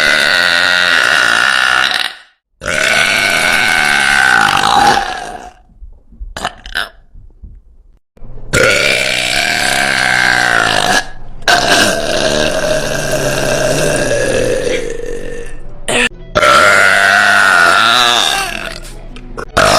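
A woman's very loud burps: about five long, drawn-out belches in a row, each lasting two to four seconds, with short gaps between them.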